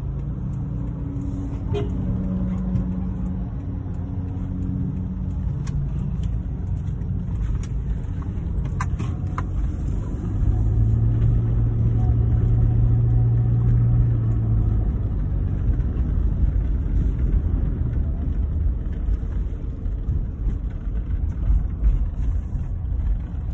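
Engine and road noise from inside a moving car, a steady low rumble. About ten seconds in, a louder low steady drone rises for around four seconds, then fades back into the rumble. A few light clicks come shortly before it.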